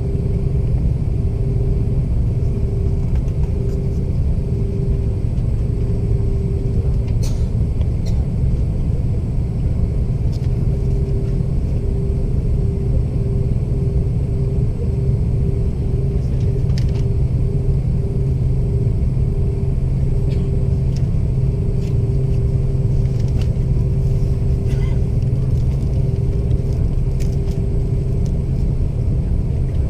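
Airbus A330 cabin noise from the engines and airflow: a steady, loud low drone, with a hum above it that throbs in and out.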